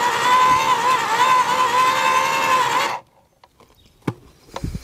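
AEG 36 V (twin 18 V battery) post hole borer's electric motor and gearbox whining as the auger bores into heavy clay, the pitch dipping now and then as it struggles a little under the load. The whine stops suddenly about three seconds in, followed by a few light knocks.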